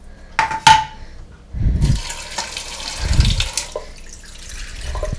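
Kitchen sink tap running a thin stream of water into a metal dog bowl, filling it. Two sharp clinks of the bowl come first, then the steady hiss of the running water, which fades near the end.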